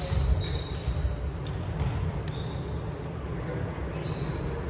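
Echoing sports-hall play: short high shoe squeaks on the court floor near the start, about two and a half seconds in and about four seconds in, with occasional ball knocks over a steady low hall rumble.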